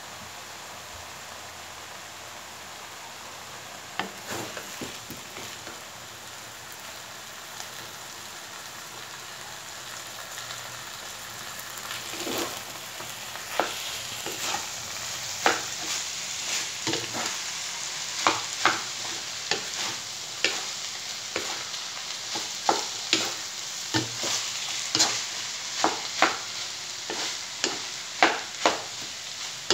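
Rice stir-frying in a metal wok: a steady sizzle that grows louder about twelve seconds in, with a wooden spatula scraping and knocking against the pan about once a second as the rice is tossed.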